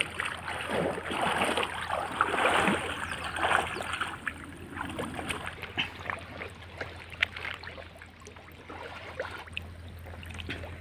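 Pond water sloshing and splashing around a person wading chest-deep, with many small splashes and drips, busier in the first few seconds and softer after that.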